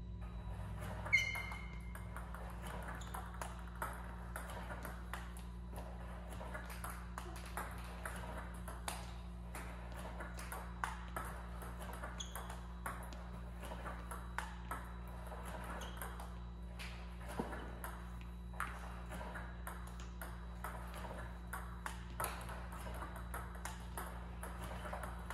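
Table tennis balls clicking, a sharp click every second or two: a Power Pong robot feeding heavy, deep backspin balls that bounce on the table and are looped back with a paddle. A short high ringing tone about a second in, over a steady low hum.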